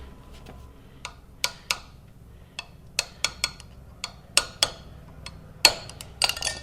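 Irregular sharp metallic taps, about fifteen of them, as a motorcycle's coil is forced down and seated onto a metal packing strip.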